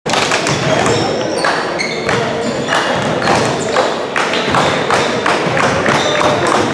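Basketball game noise on an indoor court: repeated thuds and taps of the ball and feet on the floor.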